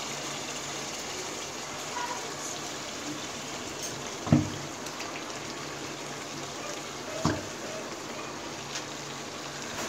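A pot of spice masala simmering and bubbling with a steady hiss. Raw beef pieces land in it with two short thuds, about four and about seven seconds in.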